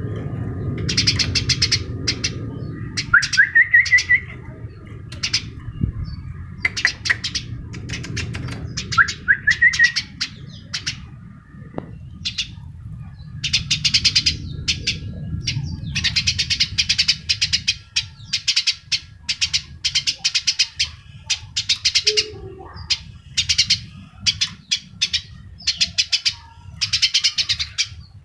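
A bird chirping: clusters of short, high, rapid chirps repeated throughout, with two rising whistled notes about three and nine seconds in. A low rumble sits under the first half.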